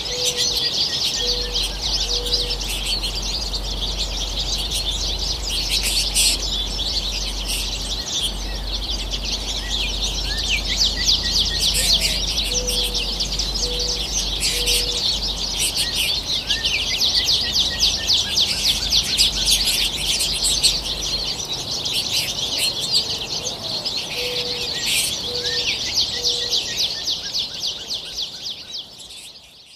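A flock of American goldfinches chattering and twittering continuously in quick, high chirps. A lower call of a few short notes repeats three times, about twelve seconds apart, and the sound fades out at the end.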